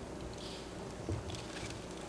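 Soft footsteps and shuffling on a wooden stage floor, with a dull low thump a little after a second in, over steady hall room noise.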